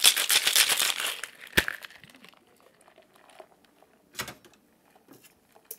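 Ice rattling fast in a metal cocktail shaker as a drink is shaken, stopping a little over a second in. A single sharp knock follows, then only a few faint clicks and handling sounds.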